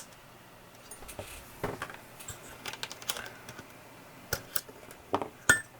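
Irregular light clicks and taps, a second or so apart, with a cluster of sharper clicks near the end: small hard parts being handled during bench work on a computer board.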